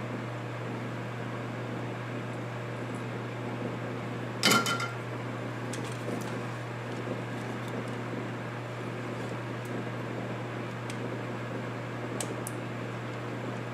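Steady low hum, with one sharp metallic clink about four and a half seconds in and a few faint light ticks: small metal tools and parts handled during soldering work on a monitor chassis.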